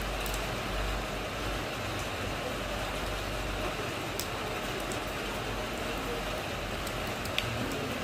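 Steady rain falling on wet ground and into a puddle: an even hiss with a few sharper drip ticks, one clear plink near the end. A low rumble underneath fades about halfway through.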